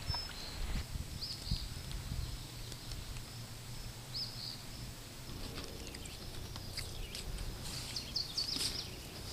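A bird chirping in short, separate calls a few times, a cluster about four seconds in and more near the end, over a steady low outdoor rumble.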